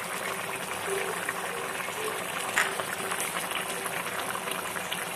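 Thick beef leg masala curry boiling in a pot, a steady bubbling hiss, with a single small click about two and a half seconds in.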